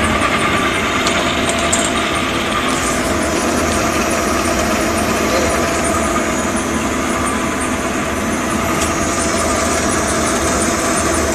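Two-colour POF shrink-film printing machine running, a steady mechanical noise of rollers and drives with a faint steady whine in it.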